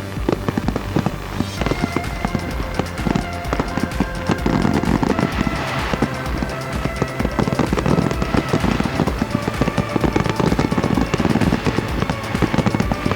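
Fireworks display: a dense, rapid run of crackles and bangs from bursting aerial shells, with music playing along that adds steady held notes from about two seconds in.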